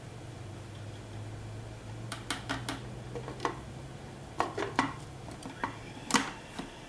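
Kitchen clatter: a dozen or so sharp clicks and knocks of hard dishes and utensils being handled, starting about two seconds in, over a faint steady low hum.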